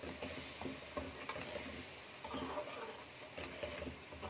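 Chicken and blended onion sizzling in oil in a metal karahi, with a metal spoon stirring and scraping against the pan in scattered short strokes. The onion paste is being fried down to cook off its water and raw taste.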